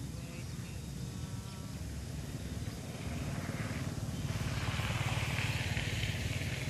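A motor vehicle engine runs steadily and gets louder about halfway through, adding a rising hiss.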